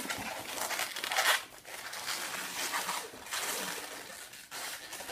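Latex 260 twisting balloons rubbing against each other as they are handled and twisted together, a scratchy rustle that is loudest a little over a second in.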